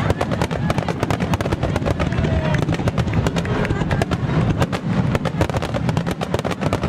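Fireworks barrage: many rapid bangs and crackles, close together and without a pause, over a constant low rumble.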